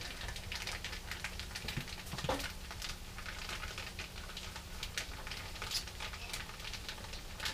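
Crawfish tails squeezed out of a plastic bag and dropping into a skillet of sautéed vegetables. Soft, scattered patter and crinkly clicks, with a faint sizzle from the pan.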